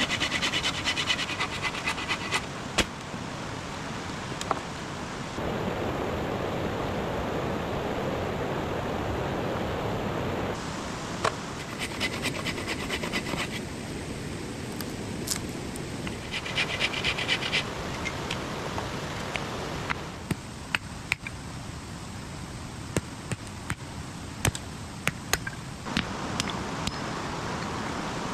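Steady rushing of a mountain stream, its level and tone changing abruptly several times, with scattered sharp clicks and a few short bursts of scratchy crackling.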